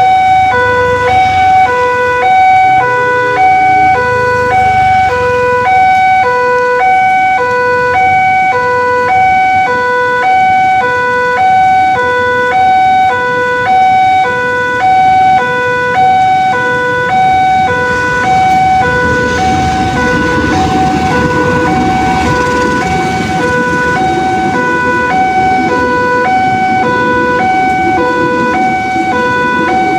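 Railway level-crossing warning alarm sounding continuously, an electronic tone alternating between two pitches about twice a second. A passenger train's rumble builds from a little past halfway as the train crosses.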